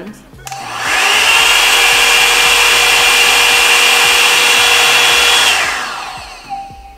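Hot air brush hair dryer running at its high heat setting: its fan starts about half a second in and runs with a loud, steady rush of air and a high whine. It is switched off near the end and fades as it spins down. The high setting makes "so much noise", more than the middle one.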